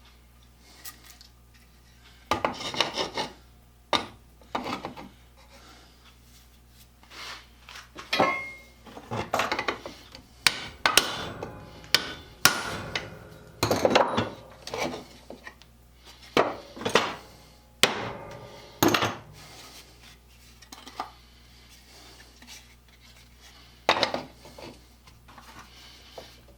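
Irregular hammer taps and knocks on a steel rivet, with scraping and handling of metal and wood between the blows, as the rivet head is worked down cold through steel plates and a wooden board. The blows come thickest about a third of the way in, then thin out.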